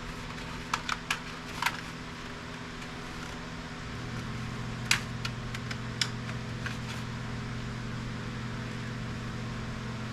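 Scattered light clicks and taps of plastic electronics casing being handled and turned over, over a steady low electrical or fan hum that steps up about four seconds in.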